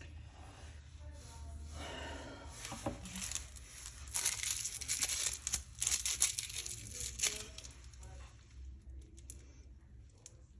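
Plastic piping bag crinkling and rustling as it is picked up and squeezed, loudest in a run of crackles through the middle.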